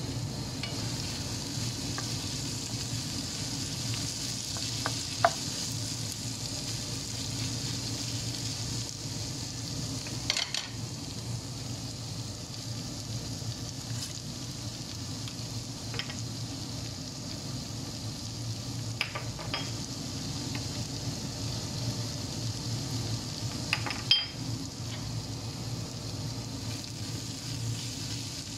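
Sliced carrots, onion and bell peppers sizzling as they are stir-fried in a frying pan, with the spatula scraping through them and knocking against the pan a few times.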